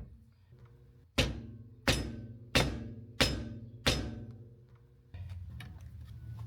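Five hammer blows on a caravan's metal brake drum and hub, about two-thirds of a second apart, each ringing out as the drum is knocked loose for removal. A steady low hum starts near the end.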